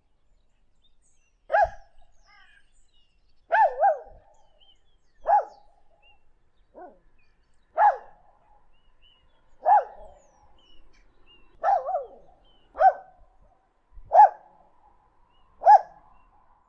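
A dog barking in single sharp barks about every one and a half to two seconds, twice as a quick double bark, about a dozen barks in all.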